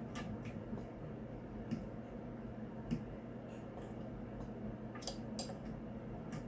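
Scattered light clicks and taps of small tools and parts being handled on a table during sprinkler reassembly, about seven in all, over a steady low hum.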